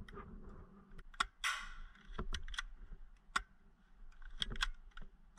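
Irregularly spaced sharp clicks and pops of airsoft guns firing, with a short hissing burst about a second and a half in.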